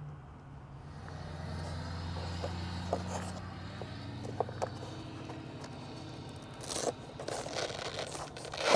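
Plastic scraping, clicks and rustling as the flight battery's connectors are unplugged and the pack is worked out of a foam RC jet's battery bay, loudest near the end. A steady low hum runs underneath.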